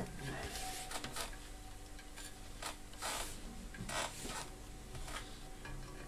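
Faint scraping and rubbing of metal multimeter test probes being handled and pressed against the magnetron's filament terminals, a few short scrapes with the clearest about three and four seconds in.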